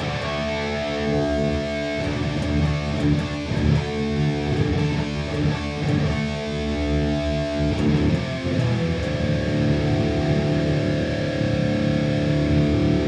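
Electric guitar played through a Boss Katana Gen 3 212 amp, strummed chords ringing out with a change of chord about two-thirds of the way through, stopping suddenly at the end. The amp's Contour 1 is engaged with its type and centre frequency adjusted, which fills in the tone.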